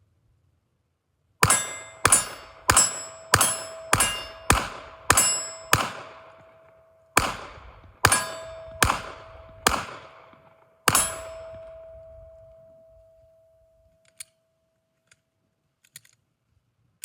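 Glock 19 pistol fired thirteen times at a steady pace, eight shots, a short pause, then five more, with a struck steel target ringing through the string. The last ring fades out over a few seconds.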